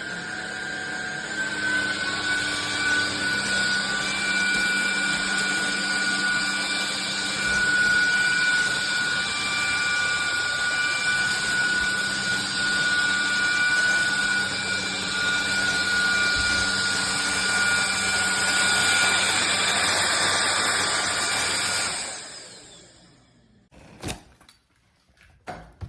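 INTETURE cordless stick vacuum running steadily with a high motor whine over a rush of air, then switched off about 22 seconds in, its motor winding down. A single click follows shortly after.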